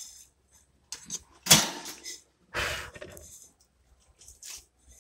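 Wire-mesh bird cage being handled: a few sharp metallic knocks and rattles, the loudest about a second and a half in.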